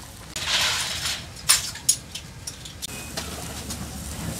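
Large cauldron of boiling mutton soup as mutton is put in: a brief rush of splashing broth, then two sharp metallic clinks of a steel ladle against the pot and a few lighter clinks, over a steady low rumble.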